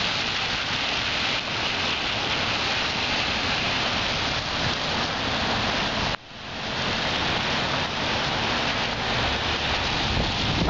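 Steady rain falling, a continuous hiss. It cuts out for an instant about six seconds in and swells back.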